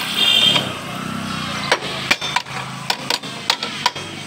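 Hammer knocking on the rear drum-brake assembly of an auto-rickshaw as the brake shoes are changed: about seven sharp metal strikes in the second half. A brief high-pitched beep sounds right at the start.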